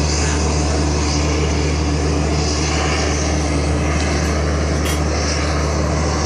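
P-51 Mustang's V-12 piston engine droning steadily in the distance: an even, low hum with no rise or fall in pitch.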